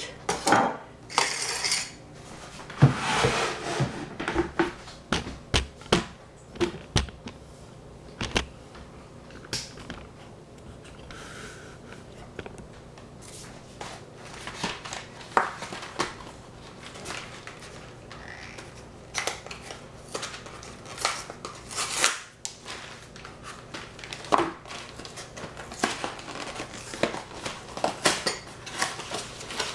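Irregular kitchen handling noises: scattered clinks and knocks of dishes and utensils, with a few short stretches of crinkling and rustling.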